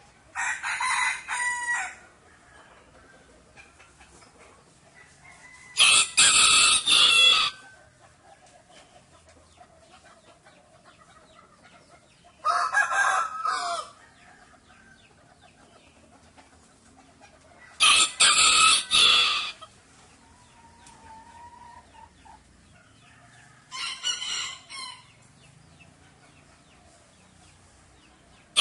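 Chickens calling: five loud squawking calls, each lasting a second or two, come about every six seconds, with faint clucking between them.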